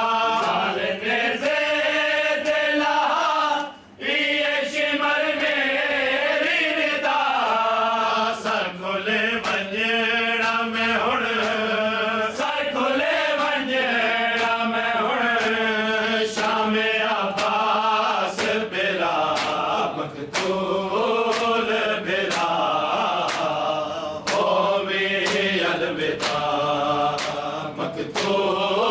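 A group of men chanting a noha, a Shia mourning lament, in unison behind a lead reciter, over a steady beat of sharp slaps from matam, the rhythmic striking of the chest with the hands. The chant breaks off briefly about four seconds in.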